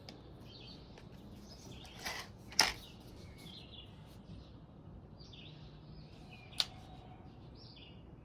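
Small birds chirping in the background, while the .25 caliber Hatsan break-barrel air rifle is handled, likely readied for the next shot: a click and a louder clack about two and a half seconds in, then a single sharp click about six and a half seconds in.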